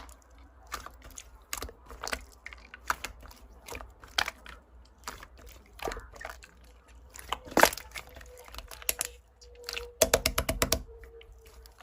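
Irregular sharp clicks and taps of typing, with a quick run of about eight clicks near the end.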